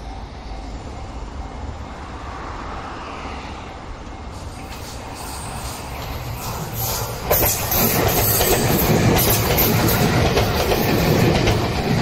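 A JR West 227-series electric train comes out of a tunnel and passes close by. It gets suddenly loud about seven seconds in, with wheels clacking over rail joints. Under it a level-crossing warning bell dings at a steady, even rate.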